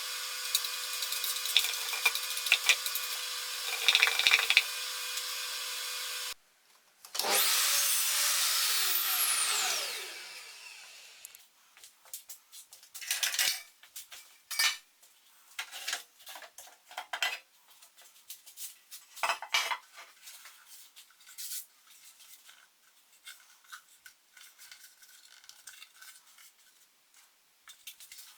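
A power tool running steadily, cut off suddenly. Then a louder machine whose pitch falls as it winds down. Then scattered scraping, rubbing and knocking from handling wood and tools.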